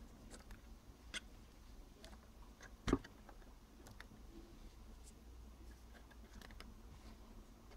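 Faint clicks and light taps of cigarettes and fingers against a 3D-printed PLA plastic case as the cigarettes are slid into it, with one louder knock about three seconds in.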